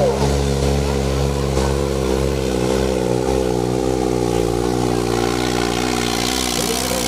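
New Holland 3630 tractor's three-cylinder diesel engine running steadily under load as it drags a weighted harrow through the dirt. Its note wavers slightly in pitch midway through.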